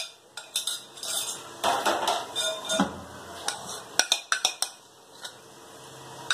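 Kitchen utensils clinking and scraping: a spoon against a bowl and a pan, irregularly, with a quick run of sharp clicks about four seconds in.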